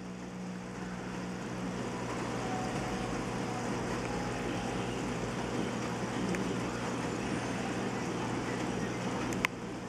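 Aquarium pump running: a steady hum over an even hiss, with a single click near the end.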